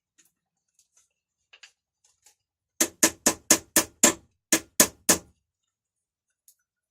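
Nine sharp hammer taps in quick succession, about four a second, with a short break after the sixth, preceded by a few faint clicks. These are the taps pressing the new ratchet pawl back into an Ural chainsaw's recoil starter.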